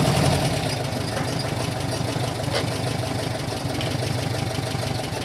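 VW Beetle's 2.0-litre Transporter engine idling steadily.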